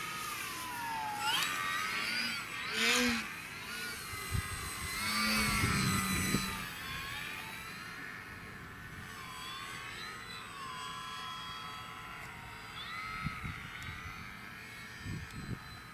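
Radio-controlled model airplane's motor and propeller whining overhead, the pitch rising and falling as the throttle changes and the plane passes. A few low thumps come through around the middle.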